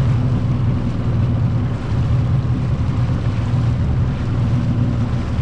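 Boat's engine running steadily with a low hum, under the rush of water and wind buffeting the microphone.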